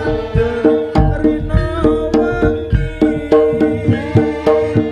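Live East Javanese jaranan gamelan music: kendang hand drums beating a brisk, steady rhythm with struck gong-chimes, over a held pitched melody tone.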